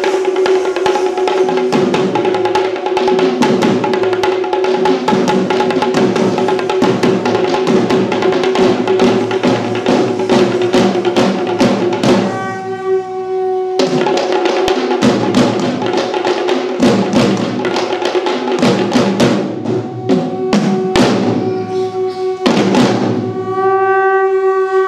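Sri Lankan drum ensemble of geta bera barrel drums and thammattama kettle drums beating fast, dense strokes over a steady held note from a wind instrument. The drums drop out for a moment about twelve seconds in, leaving the held note alone, then come back in.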